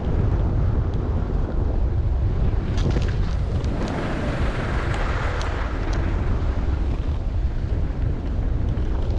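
Wind buffeting the microphone of a skier moving downhill, with skis hissing and scraping over snow, louder for a couple of seconds around the middle.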